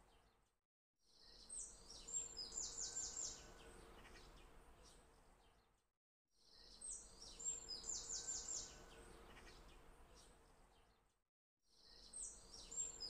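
A short recording of birds chirping, looped so that it repeats three times. Each pass fades in after a brief silence, with a few high chirps followed by a quick trill of rapid notes.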